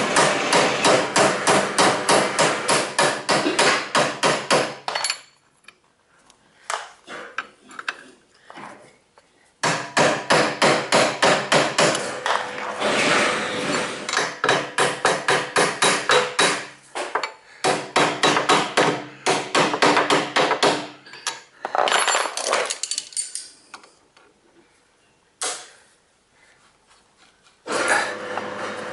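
Rapid hammer blows on a metal drift, knocking out a stuck rear-shock mounting bolt on a Yamaha FZ600, about five strikes a second. The blows come in runs of several seconds broken by short pauses.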